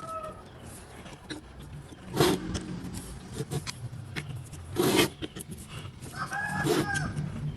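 Two loud knocks about three seconds apart, among small clicks and rattles of metal parts being handled. A chicken calls near the end.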